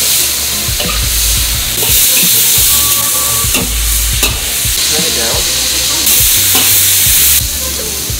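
Oxtail pieces sizzling as they brown in a hot wok, with a metal ladle stirring, knocking and scraping against the wok now and then. The sizzle swells louder about two seconds in and again near the end.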